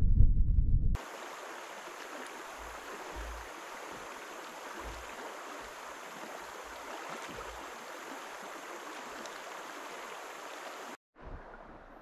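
A loud low rumble for about the first second, then river water flowing in a steady, even rush that cuts off suddenly near the end.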